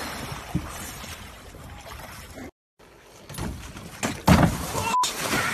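Snow and ice crunching and water sloshing as a man breaks through shelf ice at a river's edge. After a brief gap, a person hits lake water off a dock with a loud splash about four seconds in, followed by sloshing water.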